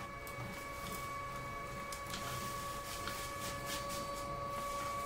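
A running machine giving a steady, even whine, with a few faint ticks scattered through it.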